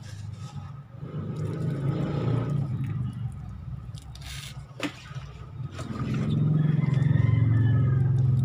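Low engine rumble of a motor vehicle, swelling louder over the last few seconds, with one sharp click about five seconds in.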